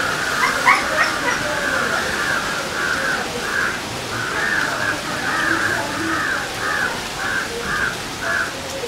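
A bird calling over and over, short repeated calls about two a second without a break.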